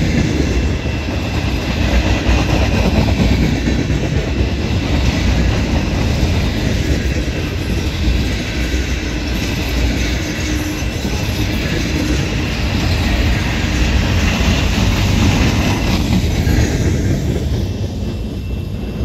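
Freight cars of a long mixed manifest train rolling past at speed: a steady rumble of steel wheels on rail, with clickety-clack over the rail joints and a faint high ring from the wheels. The higher part of the noise thins out about three-quarters of the way through, while the low rumble goes on.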